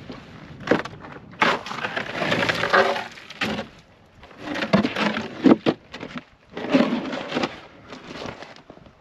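A wooden plywood panel knocking and scraping against ice as it is pried up and moved, in several irregular bursts with sharp knocks about one and a half and five and a half seconds in.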